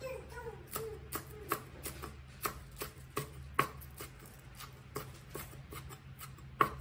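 Cleaver chopping green onions on a wooden cutting board: steady knocks of the blade against the board, about two or three a second, with one louder chop near the end.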